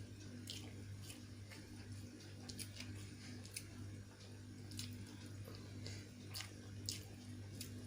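Close-up chewing and mouth smacking while eating, a string of short irregular wet clicks over a steady low hum.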